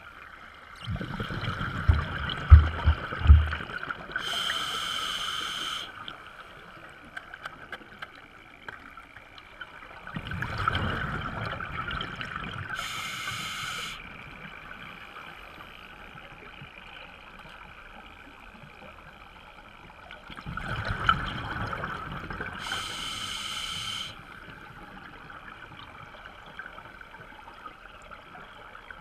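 Scuba breathing heard underwater through a regulator: three breaths about ten seconds apart, each a rush of breath noise ending in a brief hiss and bubbling as the diver exhales. A few dull knocks sound about two to three seconds in.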